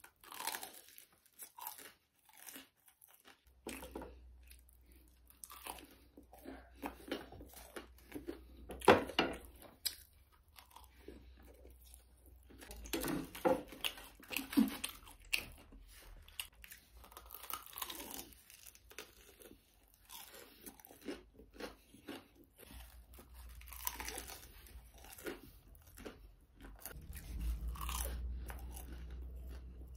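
A person eating crispy fried veg chicken nuggets close to the microphone: bites, crunching and chewing come in irregular bursts. A low steady hum runs underneath from a few seconds in.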